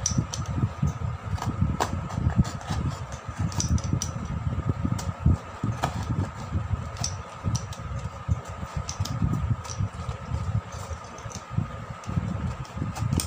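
Paper cutter blade cutting through a thin cardboard toothpaste box, giving scattered small clicks and scrapes over a steady fan hum with irregular low rumbling.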